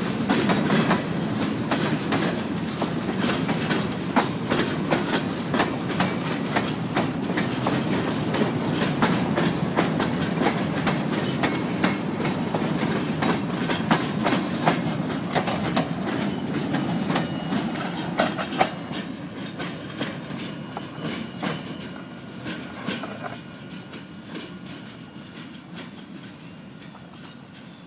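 Freight train of empty bulkhead flatcars rolling past close by: steel wheels clatter rapidly over the rail joints over a low rumble. After about 18 seconds the sound starts to fade steadily as the train moves away.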